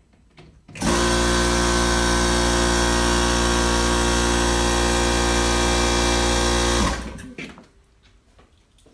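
Air compressor starting abruptly and running at a steady, loud pitch for about six seconds, then switched off and winding down.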